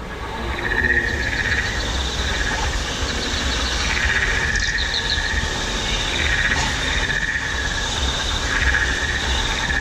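Frog- and insect-like creature calls from Pandora's themed ambient soundscape: a pulsing call that comes back every two to three seconds and short rapid chirping trills, over the steady rush of small waterfalls. The sound fades in over the first second.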